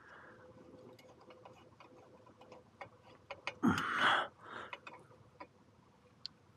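Irregular sharp clicks and ticks of a screwdriver working the clamps of an exhaust heat shield on a Harley-Davidson Sportster as they are tightened, with one louder short rasping noise a little past halfway.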